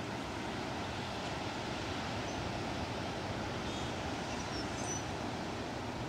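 Steady wash of ocean surf with wind across the microphone. A few faint, high bird chirps come through in the middle.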